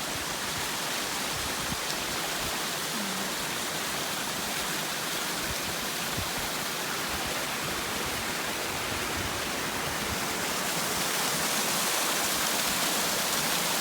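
Steady rushing of falling water, like a waterfall or mountain stream, an even hiss that grows slightly louder about eleven seconds in.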